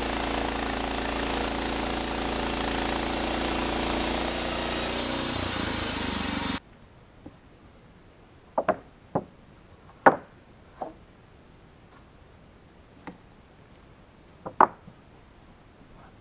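Norwood LM29 portable bandsaw mill running steadily, its engine-driven band blade sawing through a pine log; the sound cuts off abruptly about six and a half seconds in. After that, several sharp knocks and clatters.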